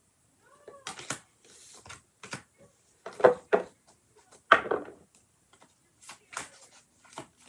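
A tarot deck being shuffled by hand: a run of short card slaps and rustles, the two loudest near the middle.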